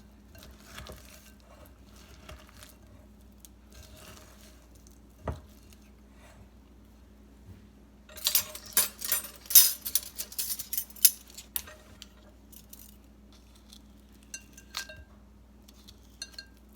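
A spoon clinking and scraping against a glass mixing bowl, in a quick flurry of sharp strikes, with a single knock a few seconds earlier and a few scattered clinks near the end.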